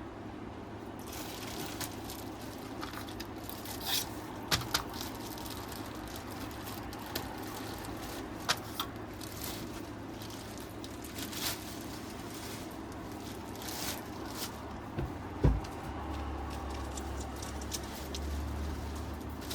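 Handling noise from assembling a sofa: scattered short knocks and clicks over a steady background noise, the loudest knock about fifteen seconds in. A low hum starts soon after it.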